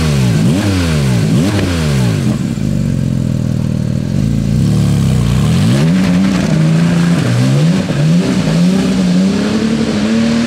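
Porsche 718 Spyder RS's 4.0-litre naturally aspirated flat-six, taken from the GT3, being revved through its titanium exhaust. It gives several quick blips that rise and fall, then climbs to a held rev that steps higher toward the end.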